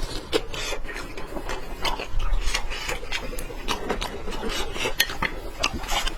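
Close-miked eating of a pan-fried chicken thigh cutlet: irregular crunching with many small sharp clicks and scrapes.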